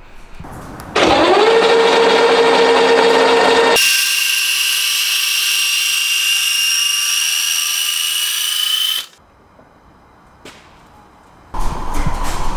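Electric linear actuators running as they lift the folding rear deck: a steady motor whine that rises in pitch as it spins up about a second in, changes abruptly to a higher, slowly climbing whine near four seconds, and stops around nine seconds. A louder run of mechanical noise starts near the end.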